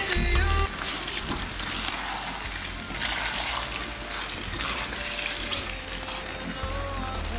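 Shrimp and bell-pepper stir-fry sizzling in a frying pan, with a wooden spatula stirring and scraping through the sauce. Background music plays underneath, louder for the first moment and then soft.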